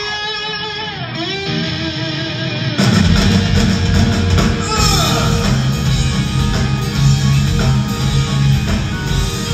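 Live rock band: a lone electric guitar plays bending, wavering notes, then about three seconds in the drums and bass crash in and the full band plays on loudly.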